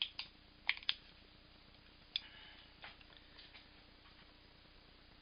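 A few small, sharp clicks and taps, several close together in the first second, one more just after two seconds and softer ones around three seconds, over a faint steady hum. They fit handling and adjusting things while a light is brought to the shelf.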